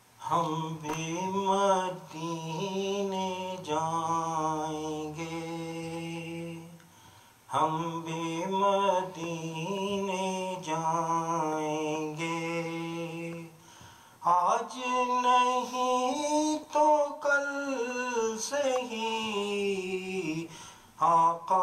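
A man singing devotional verse in praise of the Prophet, with no instruments: three long, slow phrases of held, ornamented notes, each followed by a short pause.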